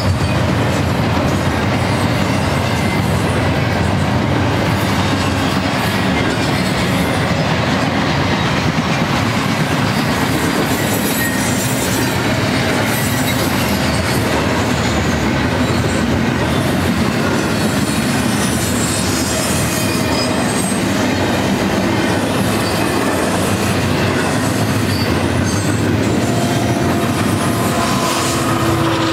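Double-stack container train rolling past at speed: a steady, loud rumble and rattle of steel wheels on rail from the passing well cars. Near the end a steady hum comes in as a locomotive in the train draws near.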